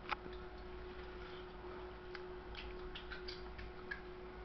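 Scattered light clicks and taps from fingers working an iPad touchscreen and its on-screen keyboard, with a sharper click right at the start. A faint steady hum runs underneath.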